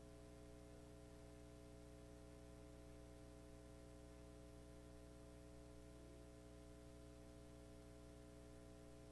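Near silence: a steady, faint electrical hum and hiss on an otherwise quiet line.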